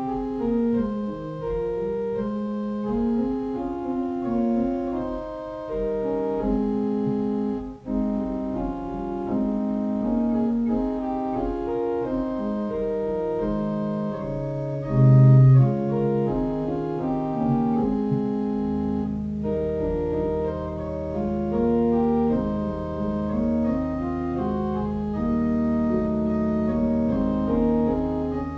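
Organ music: a slow piece of held chords and a moving melody, with a sustained low bass note coming in about two thirds of the way through.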